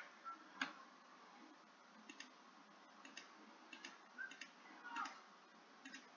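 Faint computer mouse clicks, mostly in quick pairs about once a second, each one adding a waypoint to a route drawn on a digital map.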